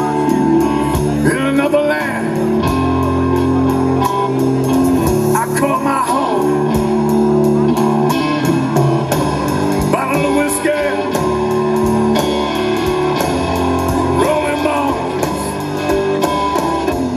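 Live rock band playing a blues-tinged song: electric guitar and bass over drums with a steady cymbal beat. A singer's voice comes in now and then over the band.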